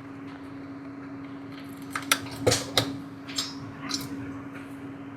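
Sharp clicks and knocks of a display panel being plugged back onto an inverter's circuit board, bunched about two to three seconds in, over a steady low hum.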